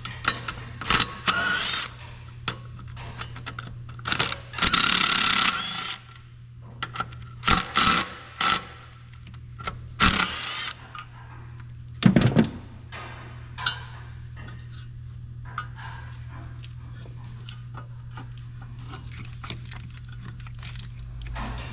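Hand tools clinking, scraping and rattling against metal engine parts in irregular bursts, over a steady low hum.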